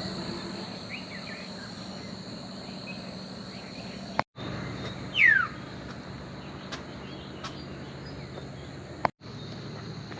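Insects trilling in a steady high drone, over a low steady hum. About five seconds in a bird gives one clear falling whistle, with a few short chirps elsewhere. The sound cuts out briefly twice.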